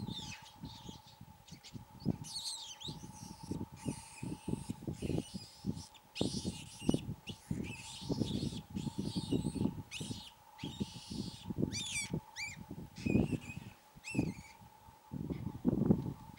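Wild birds chirping and calling in quick rising and falling notes over a steady high hum, with repeated low thumps and rustles throughout.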